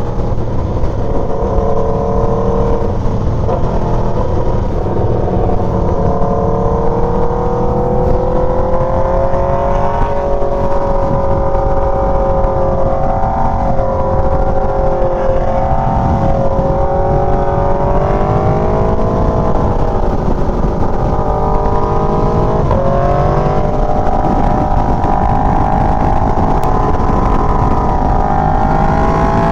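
Aprilia Tuono V4's V4 engine running under way through an aftermarket SC-Project GP exhaust, over steady low wind rumble. Its pitch rises and falls a few times as the throttle and gears change.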